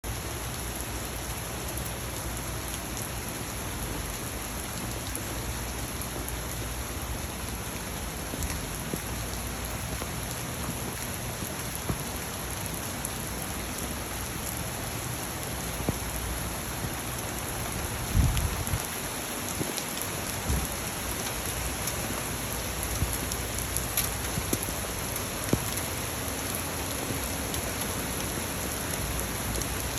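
Rain falling steadily, with scattered sharper drop impacts. A brief low thump a little past halfway.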